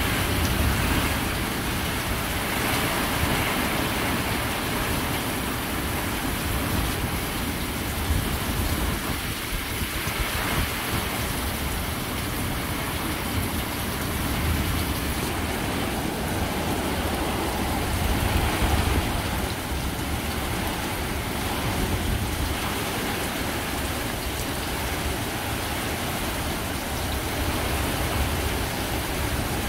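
Heavy rain pouring steadily during a thunderstorm, with low rumbles of thunder swelling now and then.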